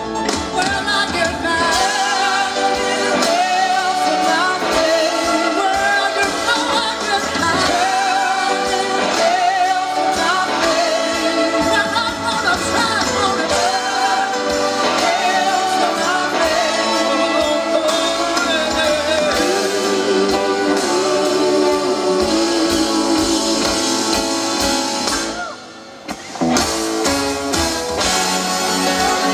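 Live rock band with a horn section and a gospel-style chorus of backing singers, a male lead voice singing over guitars, bass and drums. Near the end the band drops away briefly, then comes back in.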